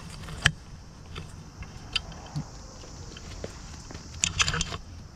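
Footsteps and handling noise: scattered sharp taps and clicks, the loudest about half a second in, and a short burst of crinkly rustling about four seconds in, over a steady low outdoor rumble.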